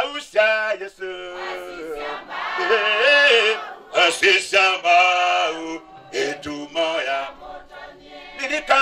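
A man leading a hymn, singing through a microphone, with other voices joining in.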